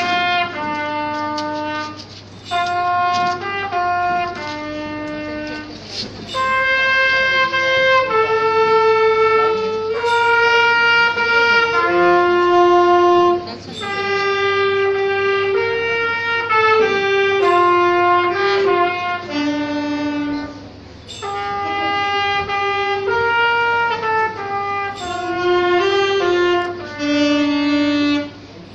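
A Christmas carol melody played as a single line of steady held notes on a wind instrument with a brass-like tone, in phrases separated by brief pauses.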